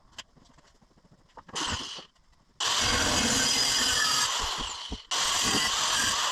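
A handheld power tool, most likely an angle grinder, cutting steel exhaust pipe. It gives a short burst near two seconds, then runs steadily from about two and a half seconds in, with a brief drop just after five seconds before it picks up again.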